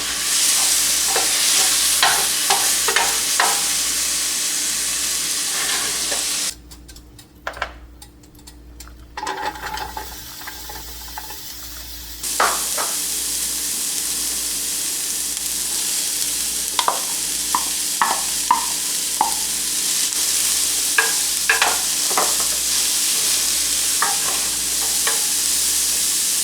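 Mushrooms and ground pork sizzling in a frying pan as they brown, with the clicks and scrapes of a utensil stirring them against the pan. The sizzle drops away for several seconds in the middle, then returns.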